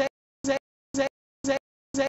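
A split-second fragment of sound with a clear pitch, repeated mechanically twice a second with dead silence between each repeat: a glitched soundtrack stuck in a loop.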